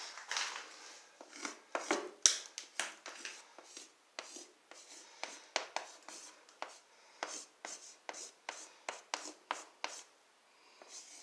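Chalk writing on a board: irregular sharp taps and short scratches, two or three a second, stopping about a second before the end.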